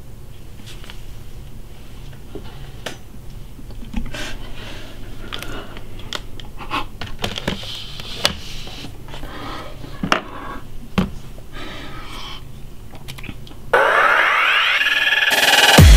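Quiet room hum with scattered clicks and taps as a laptop is handled and opened on a wooden desk. About 14 seconds in, loud electronic dance music with a heavy beat starts abruptly.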